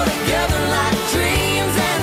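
Background pop music with a steady drum beat and bass.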